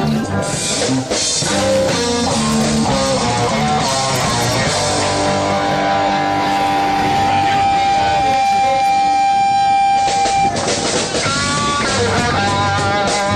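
Rock music led by guitar, with a long held note through the middle that gives way to a new phrase about ten seconds in.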